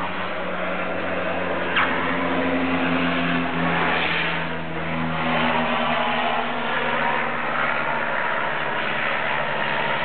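Twin-engine turboprop plane's engines and propellers running steadily on the runway. A single sharp click comes about two seconds in.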